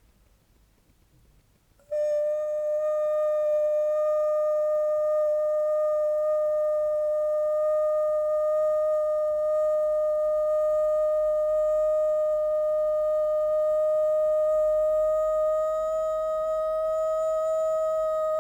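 Sound-healing toning: one clear, steady note held without a break. It starts suddenly about two seconds in and drifts slightly higher near the end.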